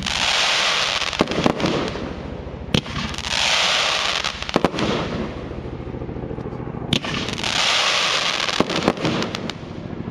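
The Branco, a 108-shot compound fireworks cake, firing: sharp shot bangs, single and in quick clusters, with waves of hissing rush from the mines and bouquets about every three and a half seconds.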